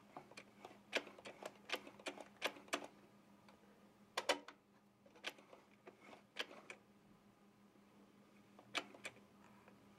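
Faint light clicks and ticks from a sewing machine's needle mechanism as it is worked through its needle positions, coming irregularly and sometimes in pairs, over a faint steady hum.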